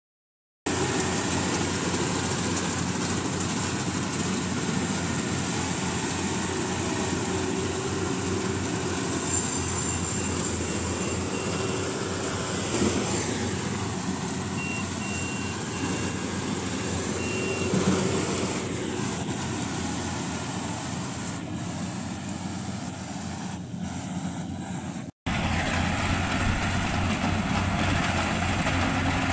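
Yanmar AW70V rice combine harvester running steadily under load, its diesel engine and threshing machinery giving a constant mechanical din. A faint beeping sounds twice, about a third of the way in and around the middle.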